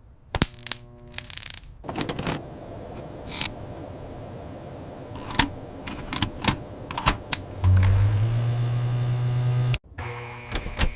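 Repair sound effects on a backup generator's wiring: scattered sharp clicks and taps, then a low hum that starts about eight seconds in, steps up once, and cuts off suddenly about two seconds later.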